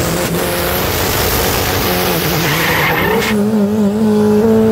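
Volkswagen Gol drag car launching off the line: the engine held at steady high revs gives way, about a third of a second in, to a loud burst of tyre spin and hard acceleration lasting about three seconds. Near the end a steady held engine note takes over.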